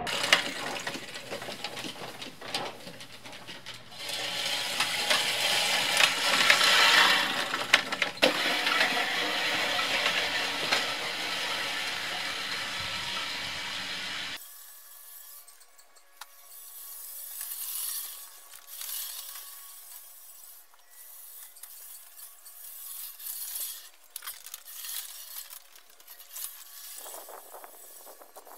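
Fiskars StaySharp Max push reel mower cutting grass: the spinning reel blades whir and snip the grass as it is pushed along. It is close and loud at first, then suddenly much fainter about halfway through, heard from farther off.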